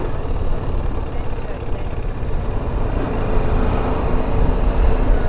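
On-board motorcycle riding sound: steady wind rumble on the microphone over the BMW G310GS's single-cylinder engine running at low speed. A short faint high beep sounds about a second in.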